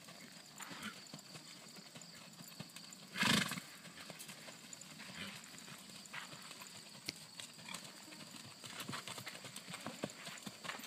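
Hoofbeats of an American Paint Horse moving under saddle on arena sand: soft, irregular thuds and ticks. About three seconds in, one brief, loud rush of noise stands out above them.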